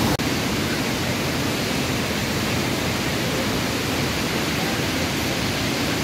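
Steady rushing of white-water river rapids below a mountain waterfall, an even roar of water with a momentary break just after the start.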